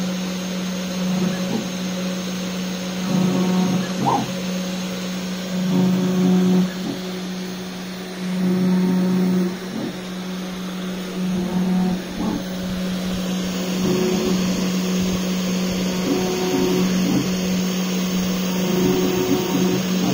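DIY CNC router engraving: a steady motor hum and high whine, with louder stretches coming and going every second or two as the machine works.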